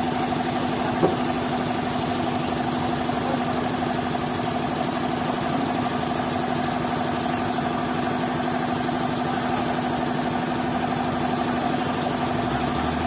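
A steady mechanical running sound like an engine at idle, even in pitch and level throughout, with one short knock about a second in.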